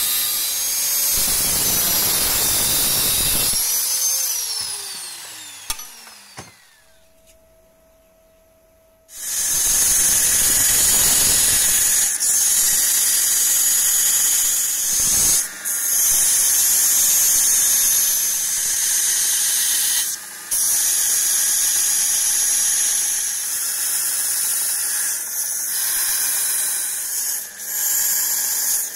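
Handheld angle grinder grinding the steel knife blade, then switched off about four seconds in, its whine falling as it winds down. From about nine seconds in a belt grinder runs with the Böhler N695 steel blade pressed to the belt, a steady high grinding with brief breaks when the blade is lifted.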